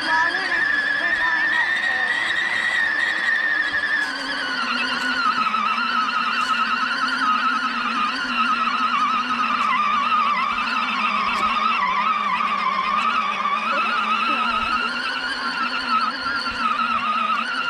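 Electric drive motor of a battery-powered ride-on toy vehicle whining steadily as it is driven, its pitch wavering up and down with speed and load.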